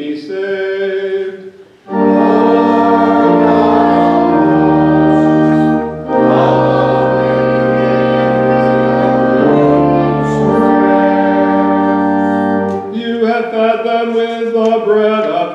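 Church organ playing sustained chords between chanted psalm verses, the bass notes shifting every second or two. A man's chanting voice is heard briefly at the start and again near the end.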